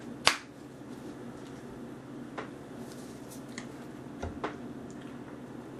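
Painting supplies being handled on a tabletop: one sharp click of a plastic squeeze bottle about a quarter second in, then a few faint taps and a soft thump, over a steady low room hum.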